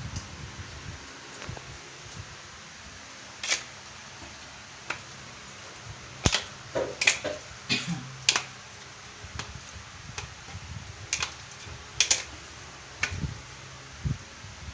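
Light knocks and clicks of hard objects being handled, about a dozen at irregular intervals, some in quick pairs.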